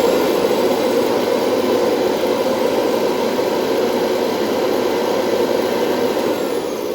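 Vintage Hoover Convertible upright vacuum cleaner running steadily at full speed: motor whine with rushing air, after a service of its brush roll and bearings.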